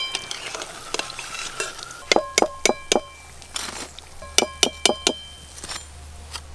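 Battered potato chops deep-frying in hot oil in a metal karahi, sizzling steadily. A perforated metal skimmer clinks against the pan with a ringing sound in two quick runs of about four strikes each, about two seconds in and again past the middle, as the fried chops are lifted out.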